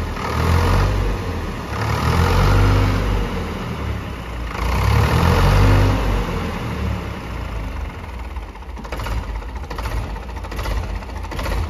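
Diesel engine of a modified Ford 3600 tractor, revved up three times in the first six seconds, then settling to a lower, steadier run. The engine is cold, just started and not yet warmed up, and its sound is expected to change as it warms.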